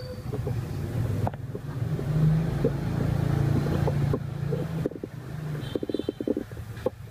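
Low hum of a motor vehicle engine that swells over a few seconds and then fades, with a quick run of light clicks and taps near the end.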